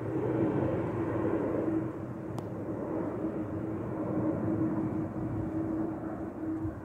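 Airplane engine drone overhead, a steady hum with one held tone that slowly fades as the aircraft moves away.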